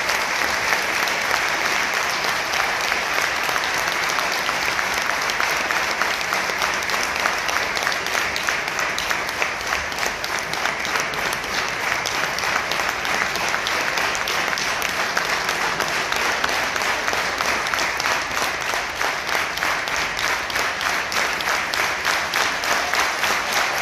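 Audience applauding, steady continuous clapping that lasts the whole time.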